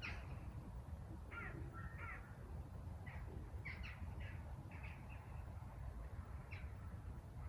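Birds calling: short, harsh, caw-like calls that come irregularly, singly and in quick pairs, over a steady low rumble.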